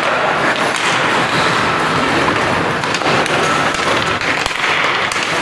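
Ice hockey play in an indoor rink: skate blades scraping the ice and scattered sharp clacks of sticks and puck, over a steady wash of noise.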